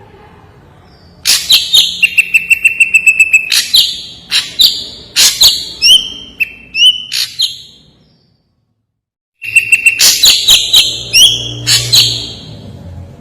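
Ashy drongo singing: loud, sharp whistles and quick runs of clipped notes, including one high whistle held for about a second and a half. The song breaks off completely for about a second and a half past the middle, then starts again.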